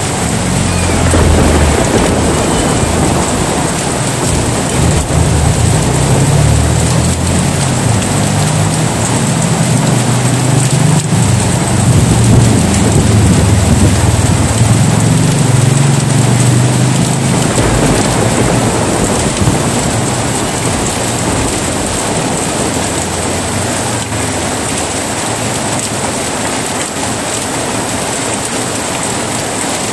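Heavy rain falling steadily, with a long low roll of thunder through the first half that dies away about two-thirds of the way in.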